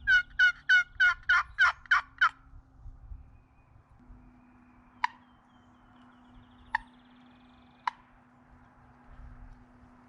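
A wild turkey-style series of about eight yelps in quick succession, followed later by three single clucks spaced a second or two apart.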